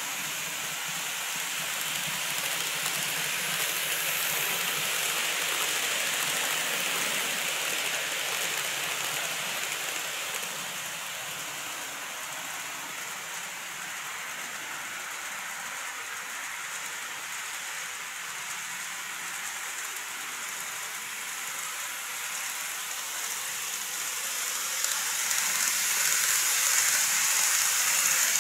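N-gauge model train running on the layout's track: a steady hiss of wheels on rail. It swells in the first few seconds, eases off, then grows louder near the end as the train comes close past the camera.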